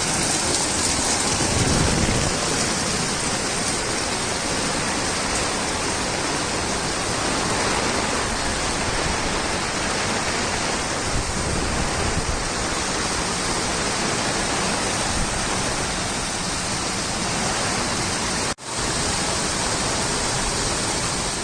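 Steady hiss of heavy rain and rushing floodwater, broken by a split-second dropout near the end.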